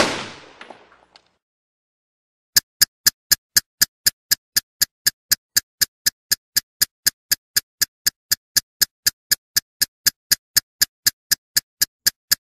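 A loud bang dies away over about a second. Then comes a steady run of sharp, even ticks, about four a second, for nearly ten seconds: an intro-template ticking sound effect.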